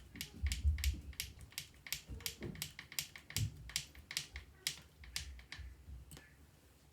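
Rapid light clicks, about three or four a second, from a hand driver turning screws into the plastic bumper and chassis of an RC truck. The clicks fade out after about five seconds.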